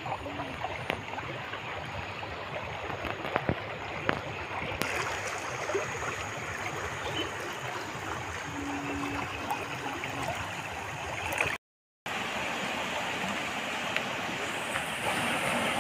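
Floodwater flowing and gurgling steadily, an even rush of moving water. The sound drops out for a moment about twelve seconds in.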